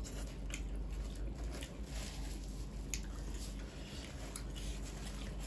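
Close-up eating sounds of mutton curry and rice eaten by hand: soft wet chewing and squishing, with scattered small clicks.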